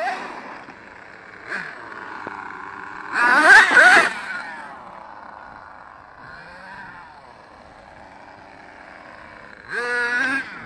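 Kyosho Giga Crusher RC monster truck's twin GXR28 nitro engines running. They give a loud rev with wavering pitch about three seconds in, drop to a fainter steady running through the middle, then rev up loudly again with a rising pitch near the end.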